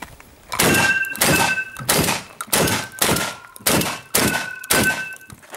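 A fast string of about eight shotgun shots, roughly half a second apart, several of them followed by a short ringing tone.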